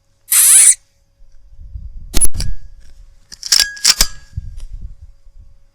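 A single shot from a Weihrauch HW100 .22 pre-charged air rifle: a loud, hissy crack about a third of a second in. It is followed by a series of sharp metallic clicks, some ringing briefly, as the rifle's action is worked, over a low handling rumble.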